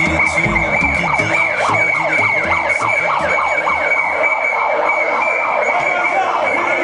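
Siren-like wailing: a steady high-pitched tone with many quick rising-and-falling wails layered under it, from noisemakers carried in a strikers' march.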